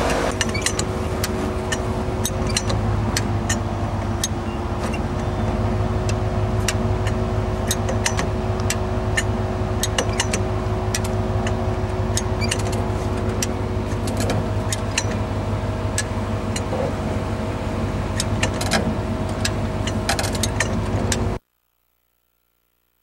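Off-road 4x4's engine running at a steady speed, with many sharp clicks and knocks over it. The sound cuts off suddenly near the end.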